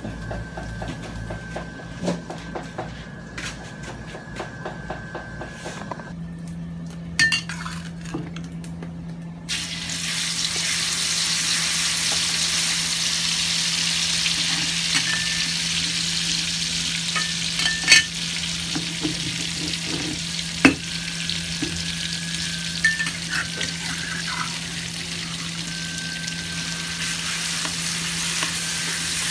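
Spice paste frying in hot oil in a wok: a loud, steady sizzle starts about ten seconds in and carries on, with a spatula now and then clinking and scraping against the wok as the paste is stir-fried. A steady low hum runs under it from about six seconds in.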